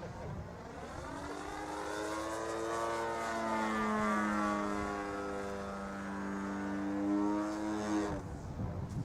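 Model aerobatic plane's 35cc single-cylinder two-stroke petrol engine turning a 20x8 propeller in flight, a steady buzzing note. The note swells and drifts slowly up and down in pitch as the plane manoeuvres, then drops away suddenly about eight seconds in.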